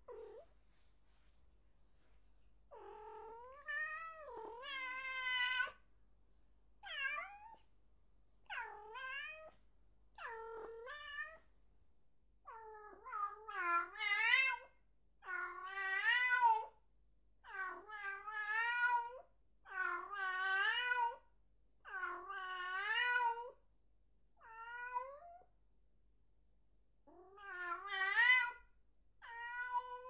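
A cat meowing over and over, about fifteen drawn-out, wavering meows, each a second or two long, with a pause of a few seconds near the end.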